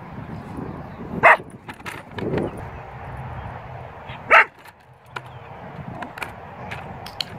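A dog barks twice, short sharp barks about three seconds apart.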